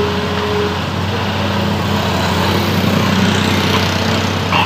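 An engine idling steadily, with motorbikes passing close by on the road and the sound swelling in the middle as one goes past.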